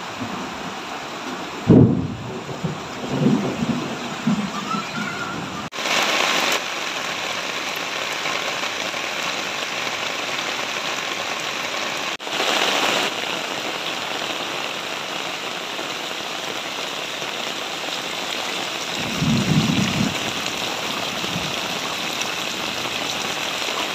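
Heavy rain pouring steadily onto the ground and water. A few short, louder low-pitched sounds come a couple of seconds in and again near the end.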